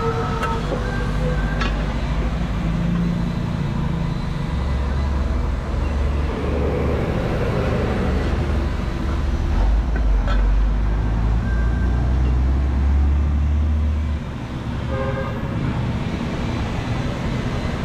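Street traffic: a heavy motor vehicle's engine rumbling close by for several seconds, fading out about three quarters of the way through, over steady road noise, with a brief horn toot near the start.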